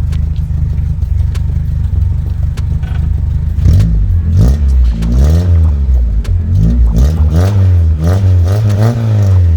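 VW Golf Mk2 GTI's 1.8-litre four-cylinder engine idling through a freshly fitted exhaust with a plain pipe in place of the muffler. From about four seconds in it is revved in a series of blips, each rising and falling in pitch. To the listener it sounds more aggressive.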